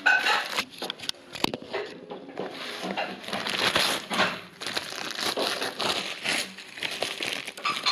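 Bichon Frise dog gnawing on a large chew bone: a dense, irregular crunching and crackling.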